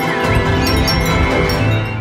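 Background music, full and steady, with a few bird chirps heard faintly beneath it.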